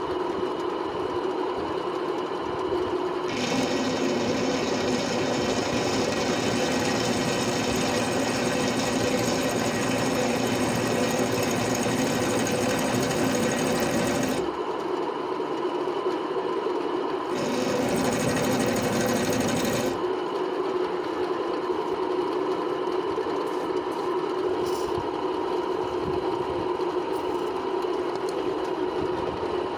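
Electric drill motor running steadily while drilling out a steel bolt, with a steady whine. The sound turns louder and rougher from about three seconds in to about fourteen seconds, and again briefly around eighteen to twenty seconds.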